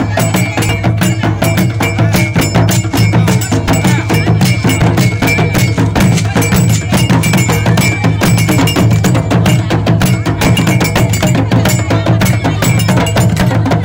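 Loud traditional percussion music: fast, dense drum strokes over a steady low beat, with a metallic ringing on top.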